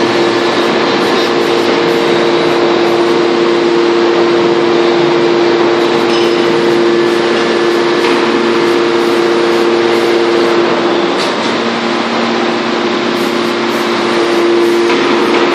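Hydraulic power unit of a Y81-3150 scrap metal baler running under load, a loud steady mechanical drone with a constant hum, as the press cylinders swing the box lid open. The hum drops lower for a few seconds about eleven seconds in, then returns.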